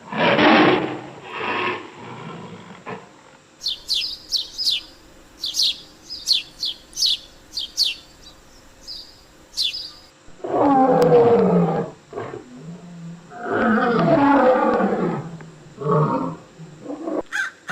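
Lion roaring: two calls at the start, two longer ones about eleven and fourteen seconds in, and shorter grunts near the end. Birds chirp repeatedly in the gap between about four and ten seconds in.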